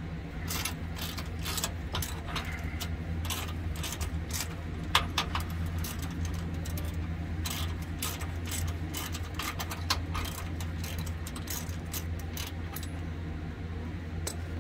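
Irregular metallic clicks and clinks of a hand wrench working the sway bar link nut on a van's front suspension, with a sharper clink about five seconds in and another near ten seconds. A steady low hum runs underneath.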